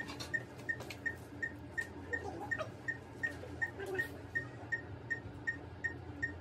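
Operating-room patient monitor beeping with each heartbeat: a short, high beep about every third of a second, over faint clicks and rustling of handling.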